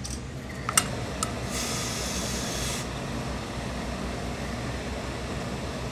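Sharp click, then a smaller one, followed by a hiss of steam from an industrial steam iron for just over a second, over a steady low hum.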